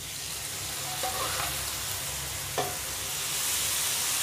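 Sizzling as cooked tinda (apple gourd) and chana dal are ladled into hot oil and fried masala in a steel kadhai and stirred with a metal ladle. The sizzle starts as the wet vegetable hits the oil and slowly grows louder. The ladle clinks sharply against the pan about two and a half seconds in.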